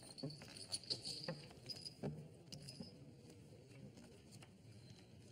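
Faint, scattered clicks of poker chips and cards being handled at a poker table, with a low murmur under them.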